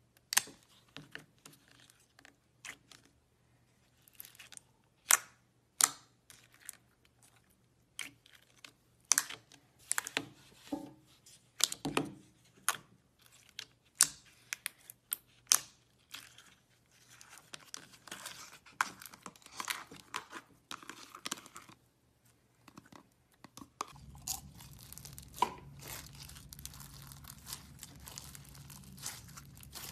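Blue slime squeezed, pressed and pulled apart by hand, giving irregular sharp crackling and popping clicks. A low hum runs under the crackling in the last few seconds.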